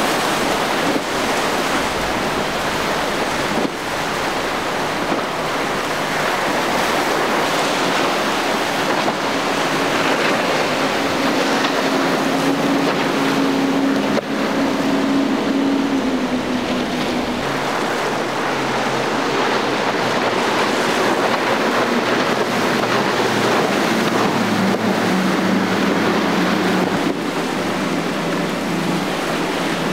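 Waves and surf washing through an ocean inlet, with wind on the microphone. Boat engines hum underneath, clearest about halfway through and again in the last third.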